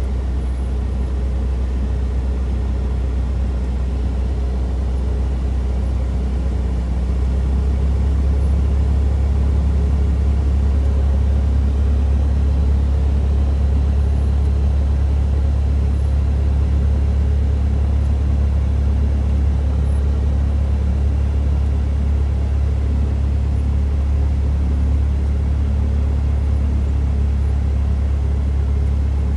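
Cessna 172 Skyhawk's piston engine and propeller running at low taxi power, heard inside the cabin as a steady low drone that grows a little louder about seven seconds in.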